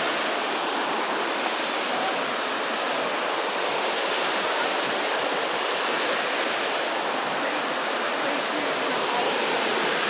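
Steady rush of a forest creek's whitewater rapids tumbling over rocks.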